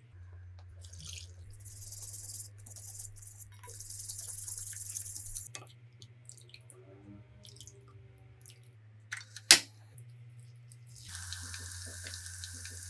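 Hot oil sizzling steadily around a batter-coated spiral-cut potato frying in a pan, starting about eleven seconds in. Before that come two stretches of hissing and, about nine and a half seconds in, a single sharp click, the loudest sound.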